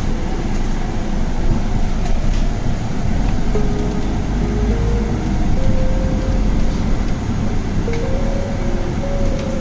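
Metro train running, a heavy low rumble inside the car, with an electric motor whine that starts about a third of the way in and climbs in pitch in steps, easing back down near the end.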